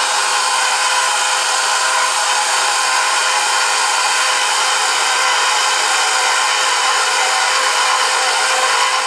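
Electric stand mixer running steadily, its motor giving an even whine as the dough hook turns through still-dry flour and liquid in a stainless steel bowl, at the start of mixing a yeasted dough.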